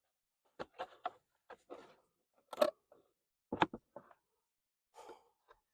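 Irregular clicks and knocks of parts being handled as the engine cover of an old two-stroke outboard motor is worked loose and lifted off. The two loudest knocks come about two and a half and three and a half seconds in.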